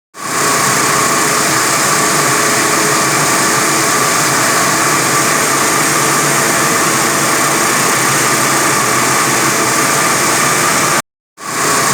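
45 kW diamond wire saw running steadily while cutting reinforced concrete: a constant hiss with a steady whine. The sound breaks off for a moment just at the start and again about eleven seconds in.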